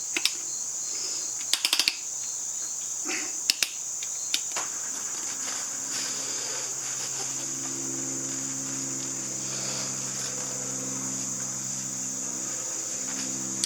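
A steady high-pitched trill, like insects or crickets, runs throughout. Several sharp clicks and taps come in the first few seconds, and a low steady hum joins about four seconds in.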